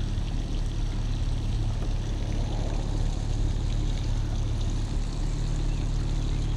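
A vehicle engine idling steadily, a low constant hum with an even hiss over it.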